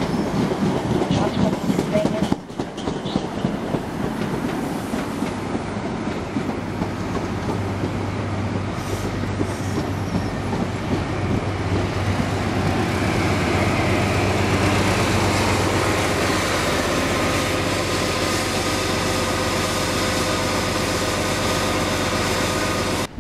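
High Speed Train rolling slowly past along a platform: the coaches' wheels rumble and clatter first. From about halfway in, the Class 43 power car's diesel engine comes close, running with a steady low hum and a steady whine over it.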